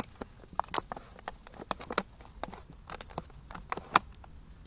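A thin plastic drink bottle packed with soil and roots clicking and crackling as it is gripped and squeezed in the hand to loosen the root ball: an irregular string of sharp clicks, the loudest about four seconds in.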